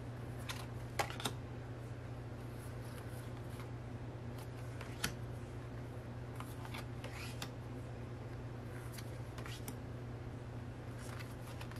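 Scattered light clicks and rustles of thin cards and plastic packaging being handled, with the sharpest clicks about a second in and about five seconds in, over a steady low hum.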